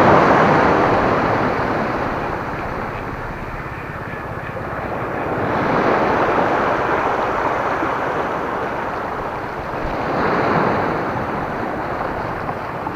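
Small sea waves breaking and washing in over a stony shore, the wash swelling and fading three times, about every four to five seconds.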